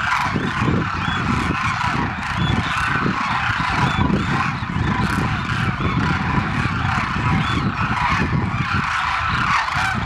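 A large flock of demoiselle cranes calling all together: a dense, continuous chorus of many overlapping croaking calls over a low rumble.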